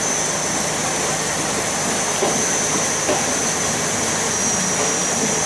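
Express 51 passenger train rolling slowly past a station platform, heard through an open carriage window: a steady running noise with a couple of soft clicks about two and three seconds in, under a steady high-pitched whine.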